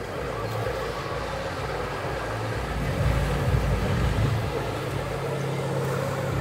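Motorboat engine running as it tows a water-skier past, swelling louder about three seconds in, over a steady low hum.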